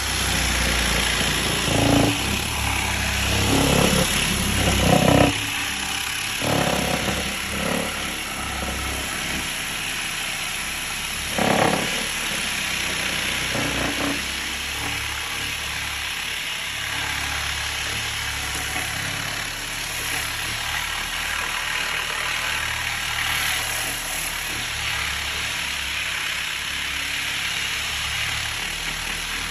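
Car buffer fitted with a 10-inch 60-grit sanding disc, switched on and running as an orbital sander on wood: a steady motor whir with the rasp of sandpaper. There are rougher, louder surges as the disc bites in the first few seconds and once more near the middle.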